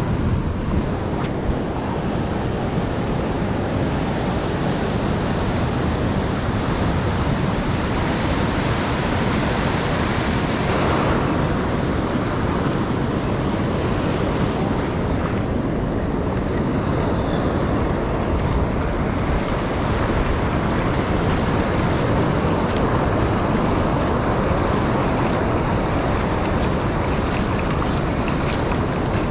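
Steady rush of surf: waves breaking and foam washing over the sand in the shallows.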